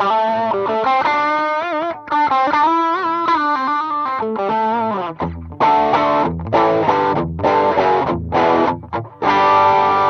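Electric guitar played through a Demonfx Breaker Drive, a Marshall Bluesbreaker-style overdrive pedal, switched on. A single-note lead line with bends and vibrato gives way about halfway through to a run of short overdriven chord stabs, ending on a held chord.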